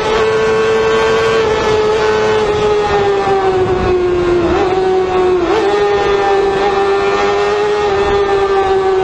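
Motorcycle engine running hard at high revs, its pitch sinking slowly as the revs ease off, with two brief dips in pitch about four and a half and five and a half seconds in.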